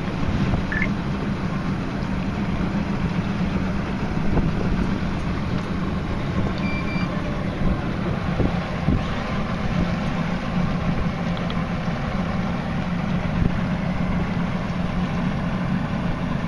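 Twin Johnson V6 outboard motors running steadily, a constant low drone. A short high beep sounds about seven seconds in.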